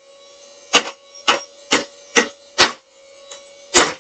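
Casdon toy Dyson vacuum cleaner running without its hose and bag: a faint steady motor hum under sharp plastic clicks about twice a second, a plastic part catching as it turns.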